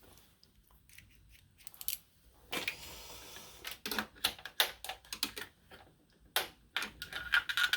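Small metal hand tools clicking and clinking as they are handled and set down, in irregular sharp clicks that come faster in the second half.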